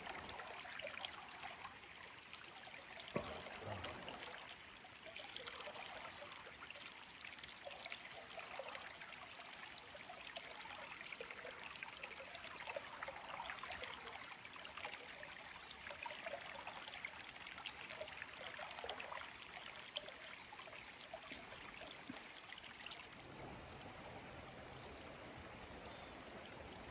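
Shallow creek water trickling and babbling over rocks, a soft steady rush.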